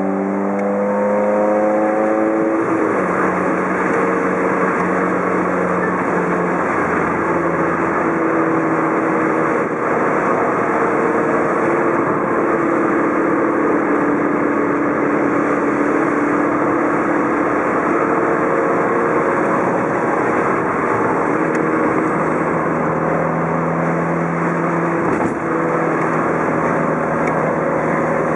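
Mazda Roadster's four-cylinder engine driving along, its revs climbing and then dropping about two seconds in, then holding with slow rises and falls, over steady road and wind noise.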